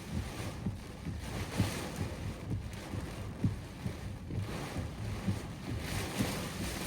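Strong thunderstorm wind gusting and buffeting the microphone, a low rumble under a rushing hiss that swells and fades with each gust.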